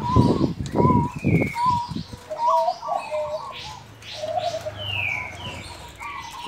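Male gong-type zebra dove (perkutut gong) cooing, a fast run of deep pulsed notes over the first two seconds or so, with small birds chirping and whistling around it. The cooing runs together because the male is over-aroused in breeding condition.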